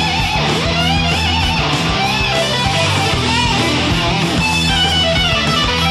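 Guitar-led background music with a steady beat.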